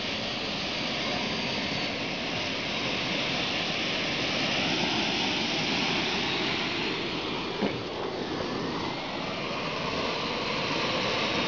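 Fuel-burning engine of a radio-controlled model jet trainer running on the ground as the plane taxis: a steady jet rush, with a faint whine that rises in the second half. There is one sharp click partway through.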